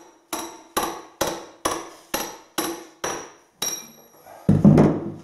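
Hammer blows on a long steel chisel driven into brickwork, about two strikes a second, each ringing briefly. A louder, heavier thud comes near the end.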